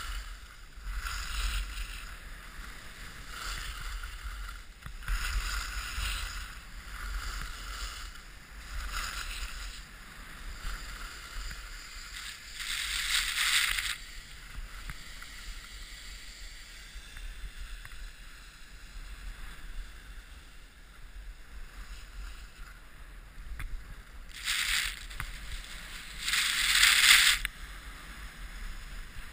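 Skis carving and scraping over packed snow, a hiss with each turn about once a second, with louder, longer scrapes near the middle and twice near the end. A low wind rumble on the camera microphone runs underneath.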